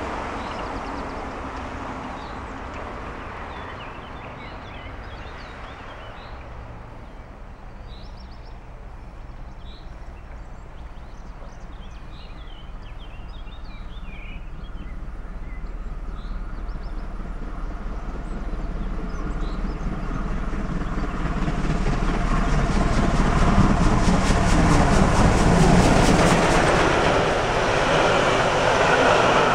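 A steam-hauled special train, led by steam locomotive 38 2267, a Prussian P8, approaches and passes at speed, growing from a distant rumble to a loud rush with its coaches clattering over the rail joints near the end. Before it, a road vehicle fades away and small birds chirp.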